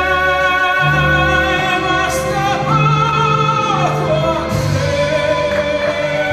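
Operatic-style singing of an Italian ballad over instrumental accompaniment: the voice holds long notes with vibrato, a high one held for about a second before sliding down.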